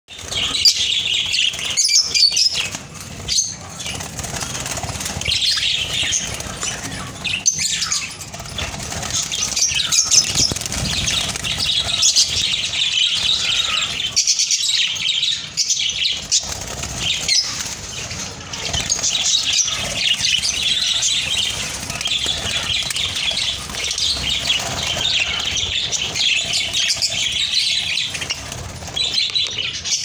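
A flock of budgerigars chirping and chattering continuously in high, busy warbles, with a few brief sharp knocks among them.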